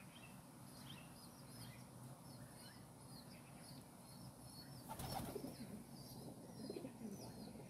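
Faint pigeons cooing close by, with small birds chirping steadily in the background. A brief rustling noise about five seconds in.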